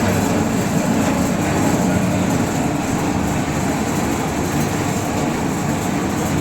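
Bottle washing machine running: a steady, loud, even mechanical noise that does not change.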